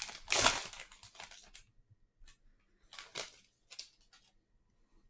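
The wrapper of a 2021 Bowman Draft baseball card pack being torn open and crinkled, loudest over the first second and a half, followed by a few shorter, fainter rustles.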